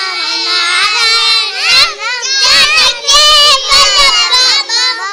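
Children's high voices singing together, several at once.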